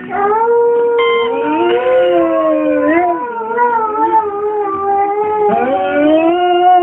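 Rhodesian Ridgeback howling in long, wavering notes that slide up and down in pitch. One howl runs for about five and a half seconds, breaks off, and a second begins at once.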